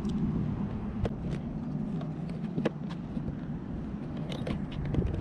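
Steady low outdoor rumble with a handful of sharp, separate clicks and taps scattered through it.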